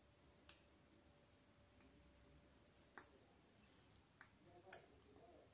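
A handful of faint, sparse clicks as a plastic fork taps against a paper cutout and the plastic table while glue is spread, the sharpest about three seconds in; otherwise near silence.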